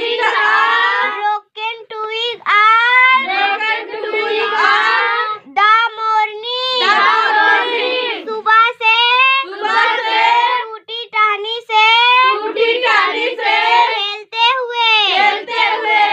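A young girl's voice reciting English poem lines aloud in a high, sing-song chant, phrase by phrase with short breaks between them.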